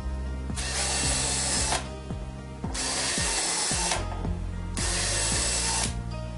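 Power drill boring pilot holes for door closer fixings, three short runs of about a second each with brief pauses between.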